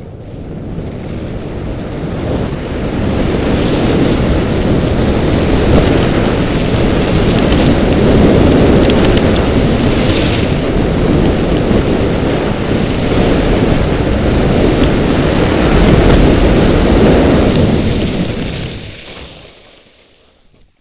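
Wind rushing and buffeting over the microphone of a camera carried by a skier descending at speed, with skis running on snow. It builds as the skier gathers speed over the first few seconds, stays loud and steady, then dies away about nineteen seconds in as the skier slows.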